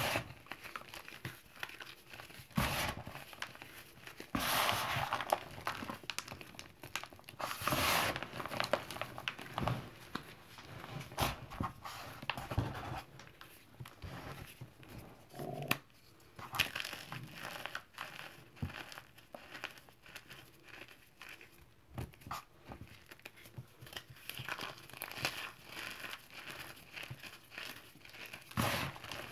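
Dried gym chalk and cornstarch chunks crushed and crumbled by hand in a bowl: crisp, irregular crunching and crackling, with louder stretches of rubbing and crumbling. Near the end, fine powder rustles as it sifts through the fingers.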